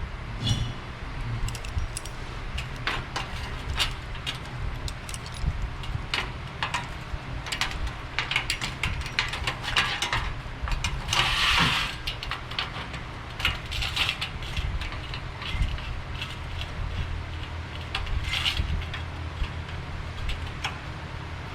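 Scattered clicks, taps and scrapes of a lower windshield panel being worked into place on a car by hand, with a brief scraping rub about halfway through, over a steady low hum.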